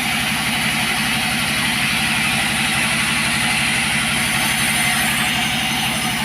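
Chainsaw engine running steadily at an even speed.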